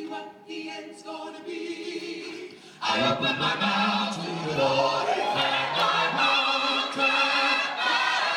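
Male gospel vocal group singing a cappella. A single voice holds sustained notes, then about three seconds in the full group comes in loudly with a bass line and close harmonies.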